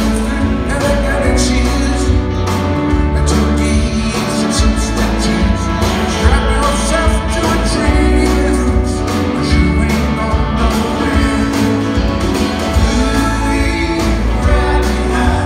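Live band playing a song with drums, electric guitars, bass, fiddle and keyboards, with a lead vocal, heard from the audience in a concert hall.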